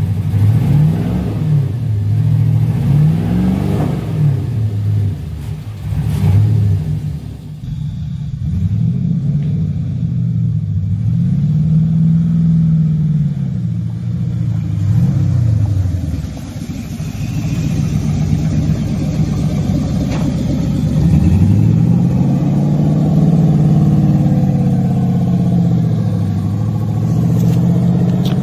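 Engine of a home-built, 3D-printed Lamborghini Aventador replica revving and accelerating, its pitch climbing and dropping again and again. The rises come quickly at first and stretch into longer sweeps later.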